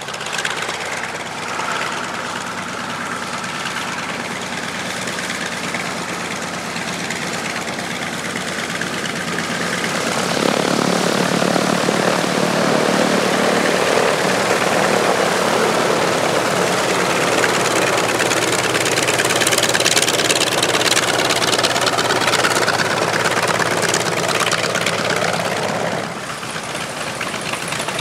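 North American T-28 Trojan's radial piston engine running steadily at taxi power. It gets louder about a third of the way in and drops back shortly before the end.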